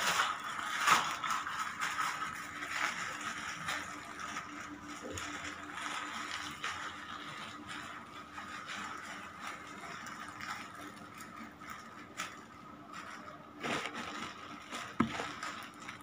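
Faint handling of a plastic bag of coloured water: rustling and clicking, with a louder knock about a second in and a few more near the end.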